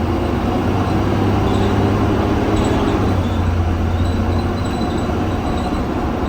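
A 2020 Blue Bird Vision school bus running along the road, heard from inside at the front: a steady engine and road drone whose note changes about halfway through.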